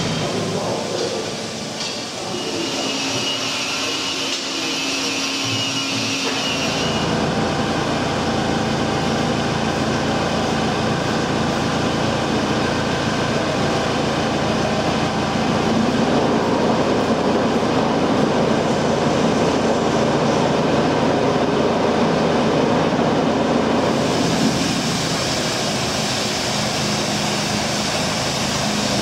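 A steel tender wheelset rumbling and ringing as it is rolled by hand along workshop rails. Near the end, the steady running of a diesel mobile crane's engine as it lifts a wheelset.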